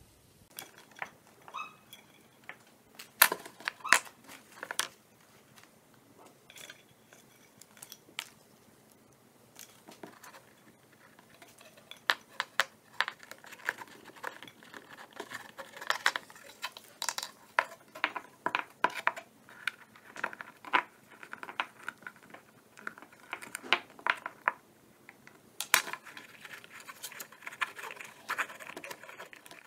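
Wooden skewers clicking and knocking against each other and the wooden board as they are bound together into a frame, with light rustling of the wrapping tape. The taps are irregular, sparse at first and busier from about twelve seconds in.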